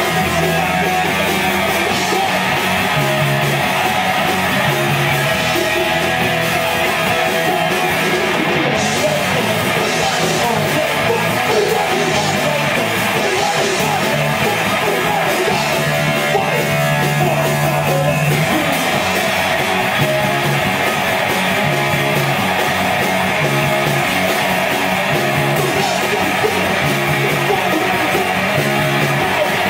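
Hardcore punk band playing live and loud: distorted electric guitars, bass and drums, with a singer yelling over them.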